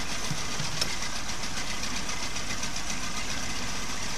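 Mercury 25 outboard engine running steadily on a test run with its lower unit submerged in a drum of water, with one brief click about a second in.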